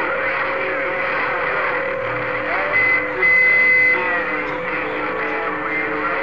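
CB radio receiver on a crowded band: overlapping garbled distant voices and whistling heterodyne tones over static. A louder steady high whistle cuts in about three seconds in and lasts about a second.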